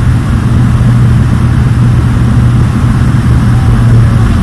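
Fokker 50 twin-turboprop engines and propellers running during takeoff: a loud, steady drone with a strong low hum.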